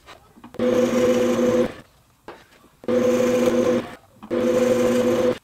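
Drill press boring holes into a wooden hub blank: three bursts of drilling, each about a second long, with short silent gaps between them, the motor giving a steady whine.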